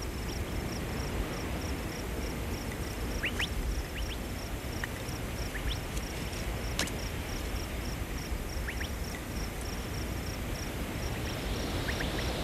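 Outdoor ambience of insects chirping in a steady rapid pulse, about four times a second. A few short high chirps come and go over a low rumble and hiss.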